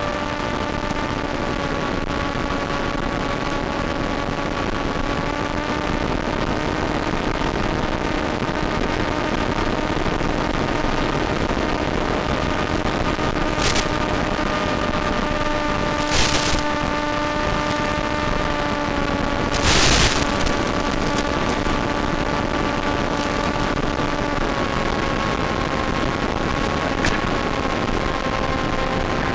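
Blade Theory Type W race wing's electric motor and propeller running steadily in flight, a droning hum over rushing-air noise, heard through the aircraft's onboard FPV audio as recorded by the goggles' DVR. About halfway through, three short bursts of hiss cut in.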